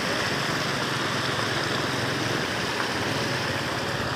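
Steady rushing of floodwater flowing over and across a road.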